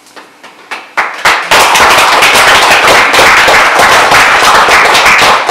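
Audience applauding: a few scattered claps about a second in, swelling into full, loud applause a moment later.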